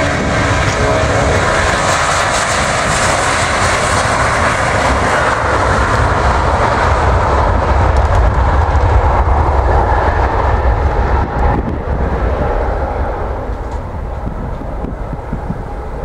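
Boeing 757-200 twin jet engines at takeoff thrust as the airliner rolls down the runway past and away: loud jet noise with a strong hiss at first, turning to a deep rumble that peaks about halfway, then fading toward the end.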